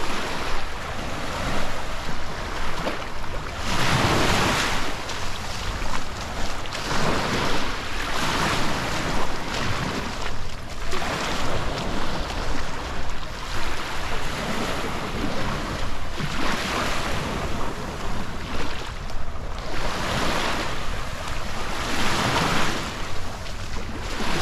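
Small sea waves breaking and washing up the shore every three seconds or so, with wind buffeting the microphone.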